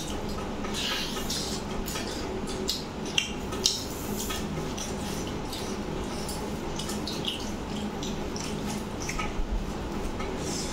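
Close-up eating sounds: chewing and wet mouth clicks as chicken and rice are eaten by hand, with fingers scraping and tapping on a steel plate, over a steady low hum.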